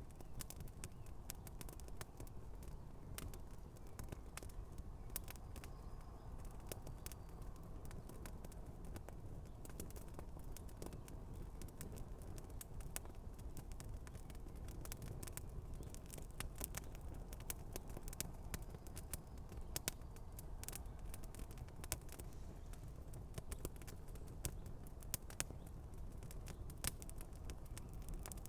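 Campfire with shoes burning on it, crackling with frequent irregular sharp pops and snaps over a steady low rumble.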